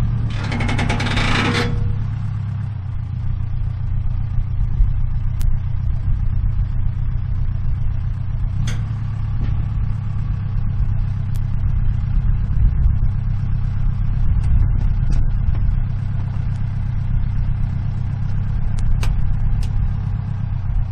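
Pickup truck engine running steadily at an even low pitch. A loud rushing noise covers the first two seconds, and a few sharp clicks sound later.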